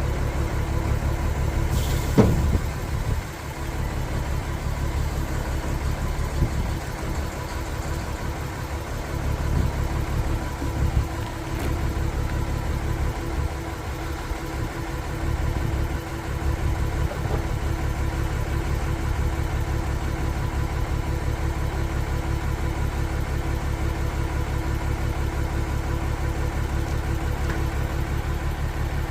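Diesel engine of a concrete pump truck running steadily at idle, with an even low pulse, and a single sharp clunk about two seconds in.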